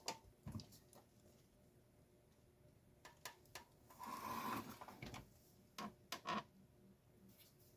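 Faint clicks and knocks of garage door opener parts being handled, with a brief scraping sound about four seconds in.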